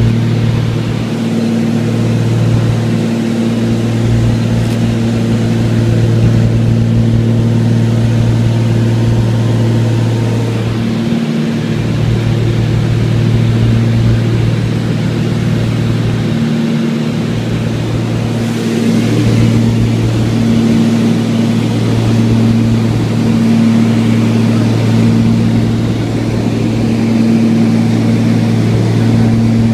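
Small propeller plane's engine droning steadily in flight, heard from inside the cabin, a steady low hum.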